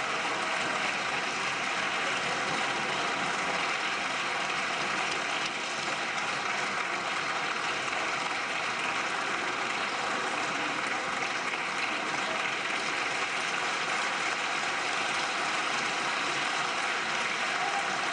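Steady, dense applause from a chamber full of members of parliament, going on without a break.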